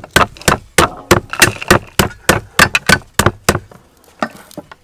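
Cleaver chopping spring onions on a thick wooden chopping board: quick, even knocks about three or four a second. They stop a little past halfway, and a few lighter taps follow near the end.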